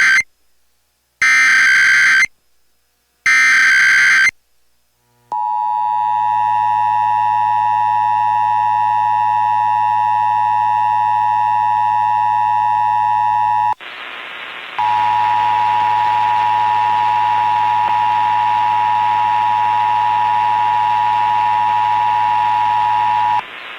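Emergency Alert System tones received over the radio. First come the last short bursts of the SAME header, screechy digital data sounding about every two seconds. Then the EAS two-tone attention signal runs as a steady dual tone, breaks off for about a second midway, and resumes until shortly before the end. Together they open a national periodic test of the alert system.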